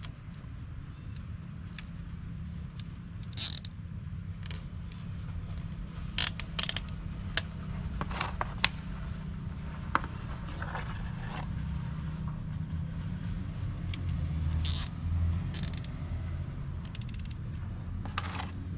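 Zip ties being pulled tight, giving scattered ratcheting clicks and short rasps, over a steady low hum.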